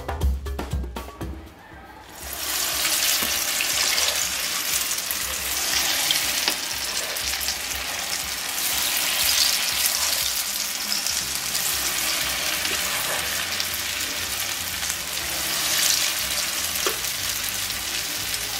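Akara, balls of blended bean batter, deep-frying in hot oil: a steady, dense sizzle of bubbling oil that starts about two seconds in.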